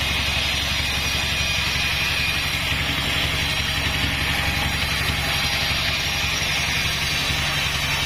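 Band sawmill running steadily, its blade ripping lengthwise through a Bayur log: a steady machine drone with the hiss of sawing over it.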